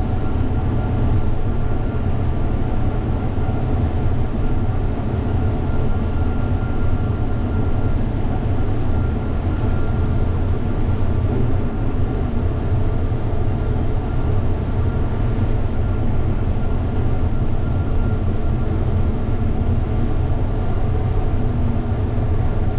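Combine harvester running steadily while harvesting corn, heard from inside the cab: a constant low drone with a thin steady whine above it.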